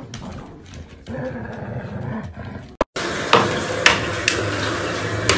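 Dogs growling as they fight over a stuffed toy. About three seconds in it cuts abruptly to a steady noise with a few sharp clicks.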